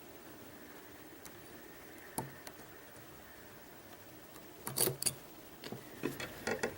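Lock pick working the pins of a Mul-T-Lock Interactive lock: scattered small metallic clicks, one about two seconds in, a quick cluster near five seconds, then a run of clicks near the end.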